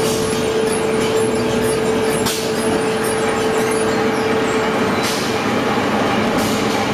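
Brick-plant clay processing machinery running steadily: a motor-driven roller crusher drops crushed clay soil onto a box feeder conveyor. A steady hum runs under the noise and drops out about five seconds in, with a few brief hisses.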